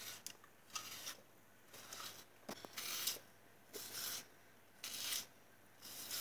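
Peeled cucumber twisted through a handheld plastic spiral vegetable sharpener, its blade shaving off a thin ribbon with each turn: a short rasping scrape about once a second.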